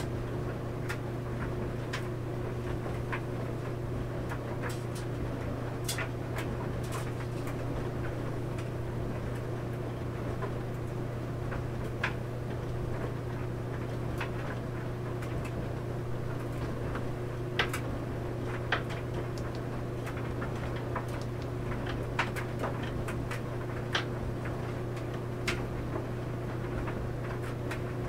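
Clothes dryer running with a steady low hum as laundry tumbles in the drum, with irregular light clicks and taps throughout.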